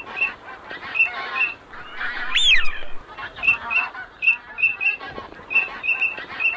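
A flock of waterfowl, geese among them, calling in a rapid run of short honks. About two seconds in, one whistled call rises and falls.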